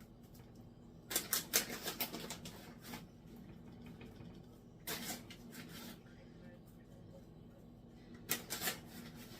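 Grated Parmesan cheese being shaken out over breadsticks, heard as three short bouts of rapid rattling: a longer one, then two brief ones.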